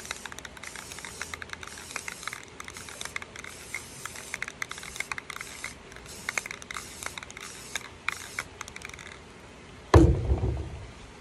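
Aerosol spray paint can hissing in a series of short spurts, with scattered small clicks, stopping about nine seconds in. A loud thump follows near the end.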